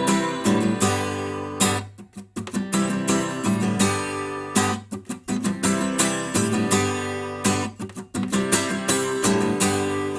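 Music: an instrumental passage of a recorded pop song, led by strummed acoustic guitar in a steady rhythm over sustained low notes, pausing briefly a few times.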